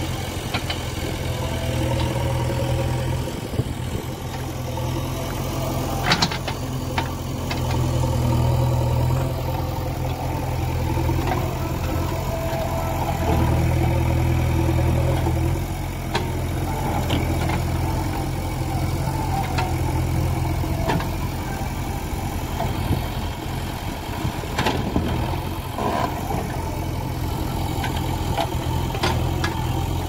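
JCB 3DX backhoe loader's diesel engine running steadily, its revs swelling and easing twice as the backhoe works the soil, with a few sharp knocks from the bucket and arm.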